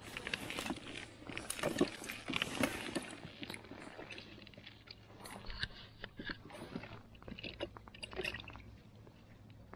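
Irregular crunching, rustling and scattered clicks of handling on snowy ice, as clothing, boots and gear shift beside an ice-fishing hole. The sounds are busiest in the first few seconds and thin out after.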